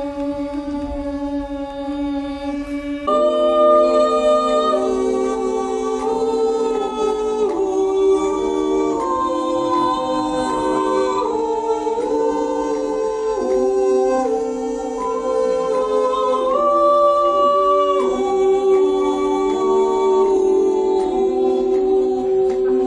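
Women's vocal ensemble singing a cappella without words: one long held note, then about three seconds in more voices join, louder, holding sustained chords that move step by step.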